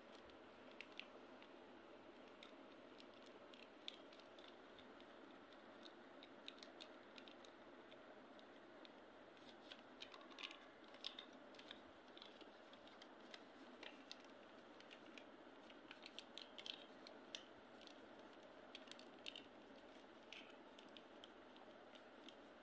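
Faint crackles and rustles of a paper sheet being folded and creased by hand into a paper boat: scattered short clicks, thickest around the middle, over a steady low hiss.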